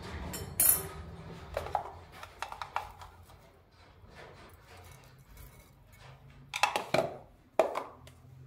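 Sharp clinks and knocks on a glass mixing bowl as eggs and seasoning go into it: one loud clink about a second in, a few lighter ones after, and a cluster of loud ones near the end, over a low steady hum.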